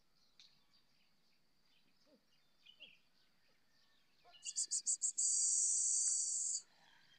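A person hissing through the teeth: five quick sharp 'ts' hisses, then one long 'tsss' of about a second and a half that stops abruptly. A few faint bird chirps come before it.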